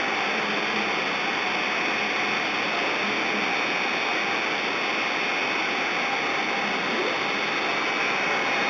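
A home-built CNC machine running: a steady hiss with a faint high whine that does not change.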